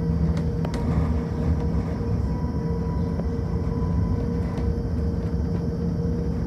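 Electric bus on the move, heard from inside the cabin: a steady low rumble of tyres on the road with a steady hum over it, and a couple of light rattles within the first second.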